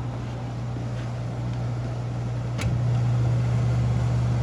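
1967 Fedders WeatherWheel window air conditioner running with a steady low hum and airflow; a little over halfway through there is a sharp click and the hum becomes louder.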